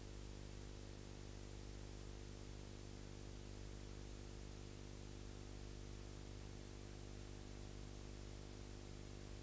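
Steady low electrical hum with a stack of overtones and a faint even hiss underneath, unchanging throughout: the background noise of the recording, with no programme sound.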